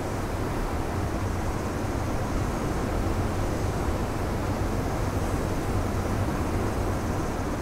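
Ocean surf breaking and washing among the rocks of a boulder shore: a steady low rumble of waves with a hiss of foam over it.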